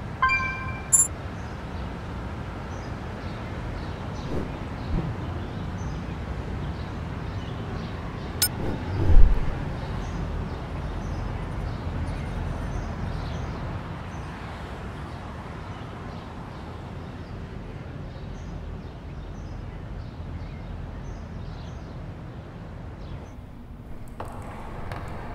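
Town ambience: a steady low rumble of distant traffic with scattered birds chirping. A short ringing tone sounds at the start, and there is a loud low thump about nine seconds in.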